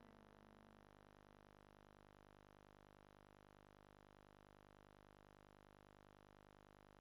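Near silence after background music fades out in the first second, leaving only a faint steady hum and hiss.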